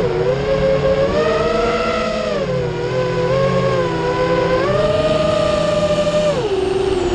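FPV quadcopter's brushless motors whining in several close tones that rise and fall together with the throttle, dropping sharply in pitch near the end.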